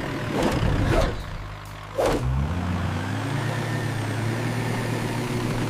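Animated vehicle engine sound effect: the engine revs up about two seconds in, then settles into a steady running drone.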